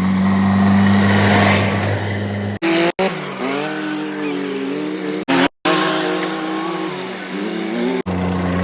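Diesel engines of heavy machinery running, cut together from several short clips: a steady low engine hum at the start and near the end, and between them engine revs that rise and fall.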